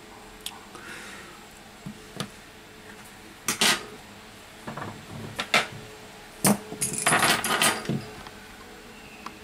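Handling noise from an iPhone 6 logic board and its aluminium housing being moved about on the workbench: a string of separate sharp clicks and light metallic clinks, with a denser rattle from about seven to eight seconds in.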